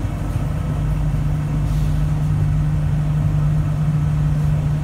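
Cabin noise of a Bombardier Innovia APM 100 rubber-tyred people mover moving out of a station: a steady low drive hum that comes in and grows louder within the first second, over a rolling rumble.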